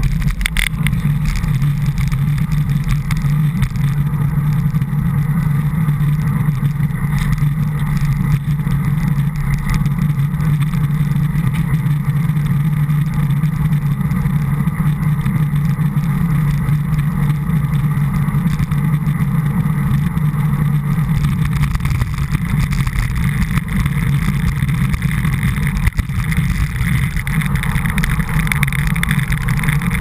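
Steady low rumble of wind and road vibration picked up by a bike-mounted GoPro HD camera in its housing while cycling along a road.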